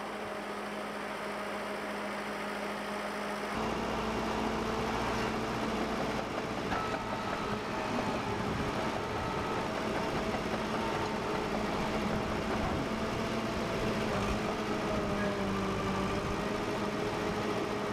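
Allis-Chalmers HD6 crawler dozer's diesel engine running steadily as it pushes chopped corn silage on the pile, heard from the operator's seat, its pitch wavering slightly with the load. The sound becomes fuller and louder about three and a half seconds in.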